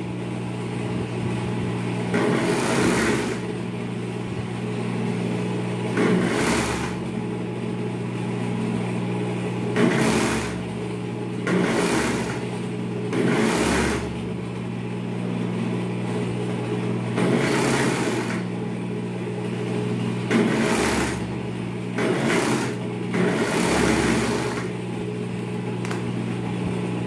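Overlock sewing machine stitching a sleeve seam on a knit pajama top in short runs of about a second, some ten times, with pauses between. A steady electric hum runs underneath.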